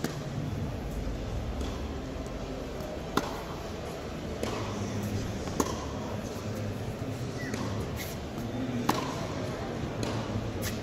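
Tennis balls struck with racquets in a practice rally: a sharp pop roughly every two and a half to three seconds, with fainter bounces between, over a steady murmur of spectators' voices.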